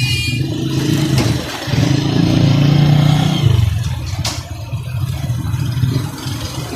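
A motor vehicle's engine running and revving nearby, louder and changing pitch over the first few seconds, then easing off, with a sharp click about four seconds in.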